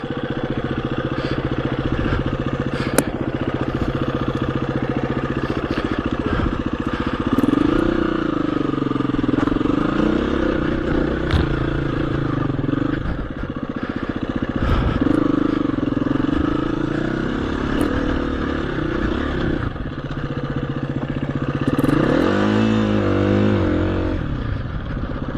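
KTM 350 EXC-F single-cylinder four-stroke dirt bike engine pulling up a steep rocky lane: the engine note climbs under throttle about seven seconds in and again past the middle, and wavers up and down near the end. A few sharp clicks and knocks from the bike over the stones.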